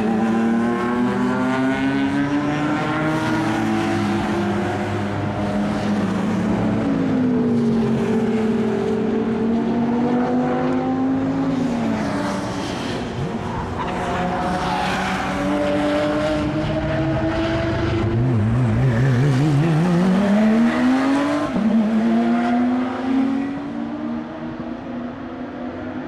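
Several high-performance sports cars lapping the circuit, their engines rising and falling in pitch through gear changes as they pass and overlap. About three quarters of the way in one car accelerates hard, its note climbing steadily through a gear before a shift; the sound eases off near the end.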